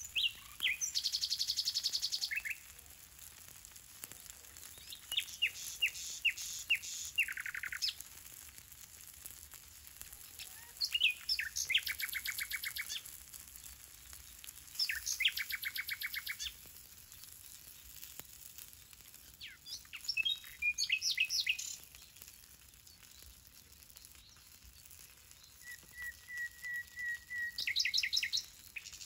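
A songbird singing six short song phrases a few seconds apart, each a quick series of high notes running into a fast trill.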